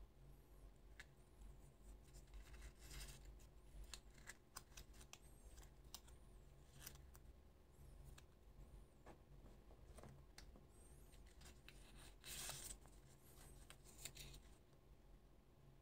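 Faint handling of small plastic toy pieces: scattered light clicks as parts are fitted together, with short crinkles of a paper leaflet and plastic wrapper, the loudest rustle about twelve seconds in.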